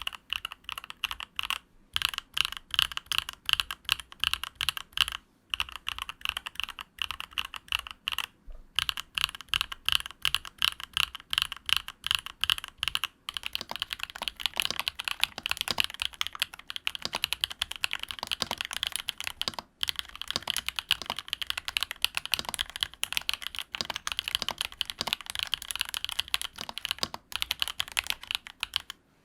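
Fast, continuous typing on a NuPhy Field75 mechanical keyboard: a dense run of key clicks broken by a few short pauses.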